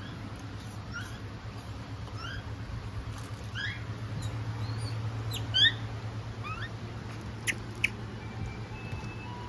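Japanese macaques giving short, high, rising squeaky calls, several in quick succession, over a steady low hum. A couple of sharp clicks come near the end.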